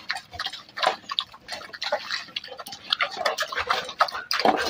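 A beagle and another dog eating soft rice food from steel bowls: quick, irregular wet smacking and clicking of mouths and tongues in the food, with no steady rhythm.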